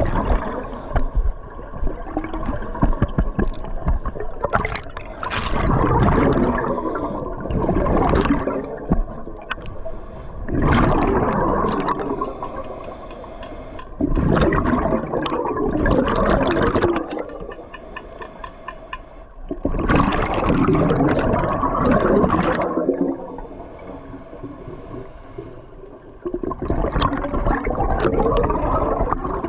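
Scuba diver breathing through a regulator underwater: each exhalation sends out a long gurgling rush of bubbles, repeating every few seconds, with quieter breaths in between.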